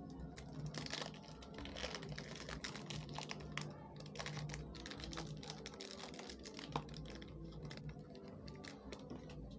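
A small cardboard box being handled and opened by hand: irregular clicks, scrapes and rustles of the flaps, with crinkling of plastic wrap.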